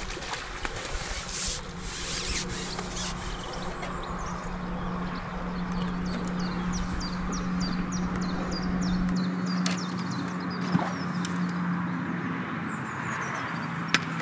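A landing net is drawn through the lake water with a brief splash in the first couple of seconds, then birds chirp in quick series over a steady low hum.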